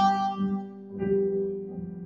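Viola playing a slow, lyrical melody in long bowed notes: one held note fades away, and a new note begins about a second in.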